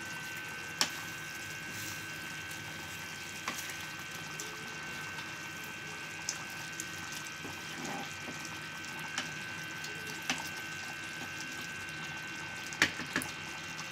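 Chicken curry simmering in a metal pan on a gas stove, a steady bubbling hiss. A wooden spoon knocks against the pan now and then as the curry is stirred, with two sharper knocks near the end.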